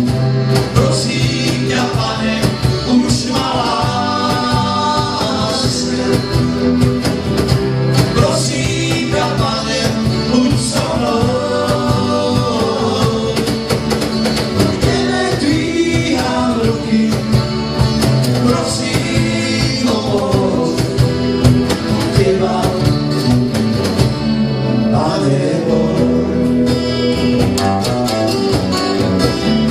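Live acoustic band playing: strummed guitars with accordion, and a wavering melody line rising above them every few seconds.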